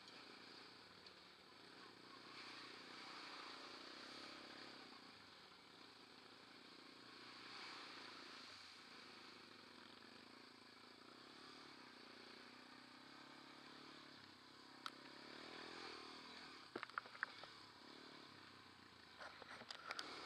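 Faint quad bike (ATV) engine running while riding a rough dirt track, its pitch rising and falling with the throttle. A few sharp knocks and clatters come in the last few seconds.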